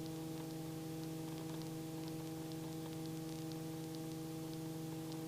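Helicopter's steady drone heard through the headset intercom: an even hum with several steady tones over a light hiss.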